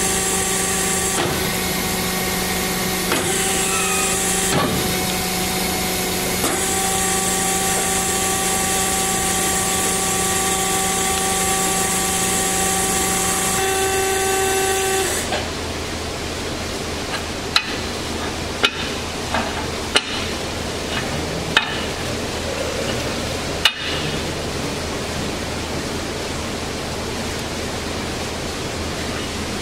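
DoAll C4100NC automatic horizontal band saw running, a steady hum of several pitches that shifts a few times as the machine cycles and stops about halfway through. After that a steady hiss remains, with several sharp knocks.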